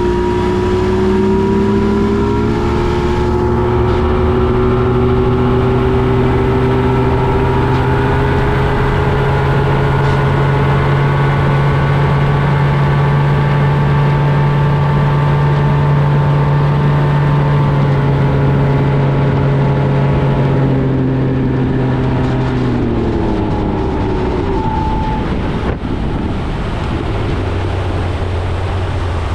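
Boat motor running under way. It speeds up, rising in pitch over the first few seconds, holds steady, then slows down, falling in pitch about three quarters of the way through.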